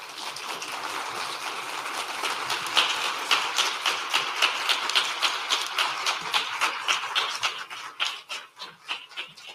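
Audience applauding: dense clapping that builds up early, stays strong through the middle with single claps standing out, and thins to scattered claps near the end.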